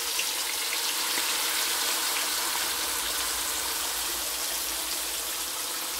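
Whole milkfish sizzling steadily in hot oil in a wok, just after being laid in.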